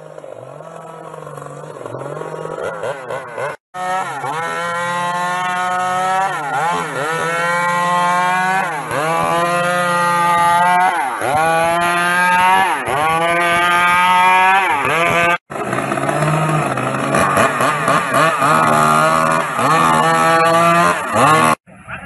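Petrol chainsaw cutting through the thick trunk of a fallen tree. Its pitch dips again and again as the chain loads up in the wood and climbs back as it frees, and it breaks off abruptly a couple of times.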